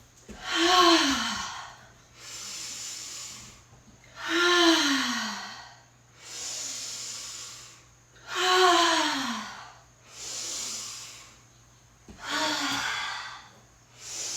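A woman taking slow deep breaths: long audible inhales alternate with four loud voiced sighing exhales, each sliding down in pitch, about one breath every four seconds.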